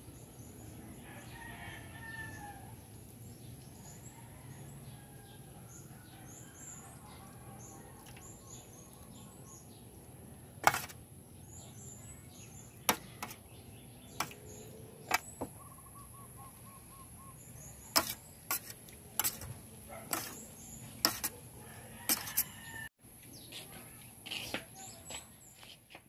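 Metal spoon clinking against a stainless steel tray as raw chicken livers are mixed in soy sauce, a dozen or so sharp clinks through the second half. Birds chirp faintly throughout.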